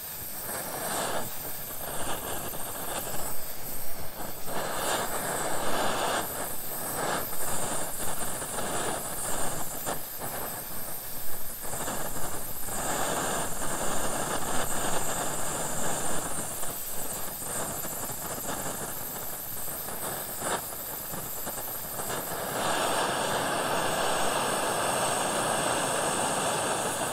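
LPG canister burner running under a titanium pot of water close to the boil. A steady hiss from the burner is mixed with the uneven rumbling and fizzing of the water as it heats, which grows steadier in the last few seconds.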